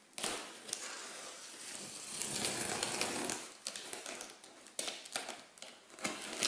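Packing tape on a cardboard box being slit open with a small cutter: a long scratchy scraping with small clicks over the first three seconds or so, then shorter scrapes.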